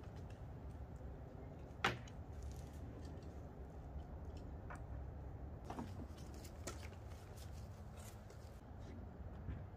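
Hands handling small tool parts and a cardboard box: scattered light clicks and knocks, with one sharp click about two seconds in, over a steady low outdoor rumble.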